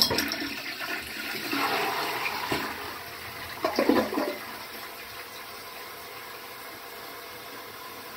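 Toilet flushing: a rush of water that eases over a few seconds into a steady hiss as the tank refills. There is a short cluster of splashes about four seconds in, from a small hand in the water of the bowl.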